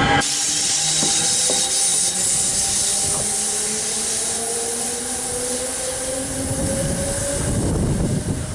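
A train running past: a steady rush of wheels and cars, with a thin whine that climbs slowly in pitch for most of the time. Its horn cuts off just at the start.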